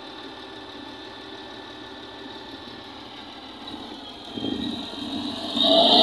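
Steady engine noise from road-building machinery at a distance, then from about five and a half seconds in the much louder running of a motor grader's diesel engine close by, with a high whine over its low drone.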